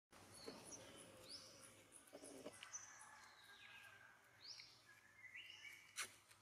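Faint birdsong: scattered short rising chirps and a few longer whistles, with one sharp click near the end.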